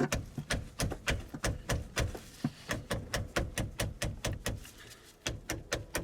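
Socket ratchet clicking steadily at about four clicks a second, with a short pause near the end, while working a battery terminal clamp nut.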